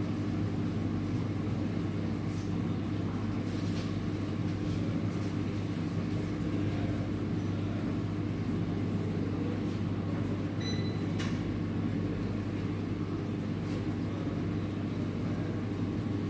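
Steady low machine hum of café equipment, with a few faint clinks and a short high beep about ten and a half seconds in.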